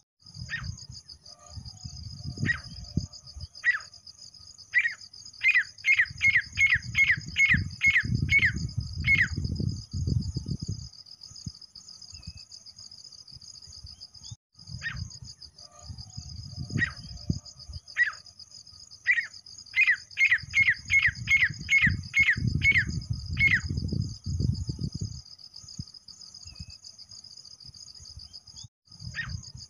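Grey francolin calling: two series of loud, ringing calls, each starting with spaced notes and quickening to about two or three a second before stopping. A steady high cricket trill runs underneath, with a low rumble under each series.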